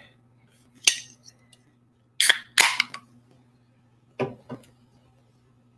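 Aluminium Olipop soda can handled and opened: a few sharp clicks and cracks of the pull tab, the loudest pair about two seconds in.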